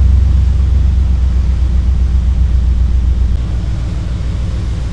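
The 1987 Oldsmobile Cutlass Supreme's 307 V8 running at idle, a steady low pulsing engine note that gets quieter about three and a half seconds in.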